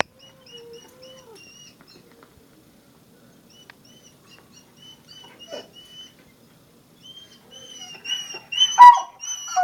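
Doberman whining: a run of short, high-pitched whimpers repeating over and over, with a lower drawn-out whine early on. The cries grow louder near the end, peaking in a loud yelp-like whine.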